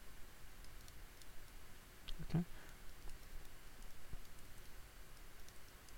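Faint, scattered clicks of a computer mouse during 3D modelling work, with a brief low vocal sound, like a short murmur, about two seconds in.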